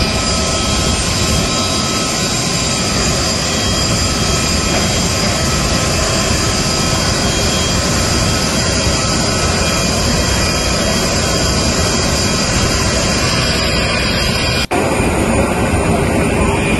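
Jet aircraft turbine running steadily on the apron: a constant roar with a high, steady whine over it, cutting out for an instant near the end.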